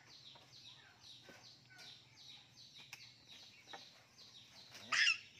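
Birds chirping: a steady run of short, high, falling chirps, about three a second, with one louder call about five seconds in.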